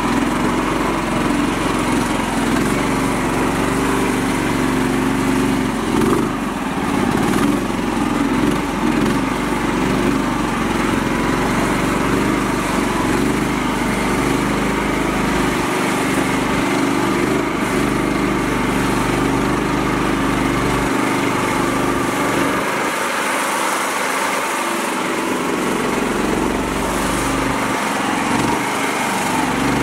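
Mini tractor's small engine running steadily at close range as the tractor drives along, its pitch and loudness staying even throughout.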